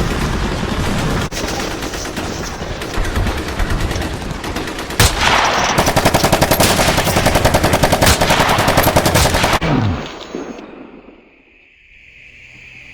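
Battle gunfire sound effects: dense overlapping shots, then a sharp single shot and a long, rapid, evenly spaced machine-gun burst that stops suddenly, fading to a faint background near the end.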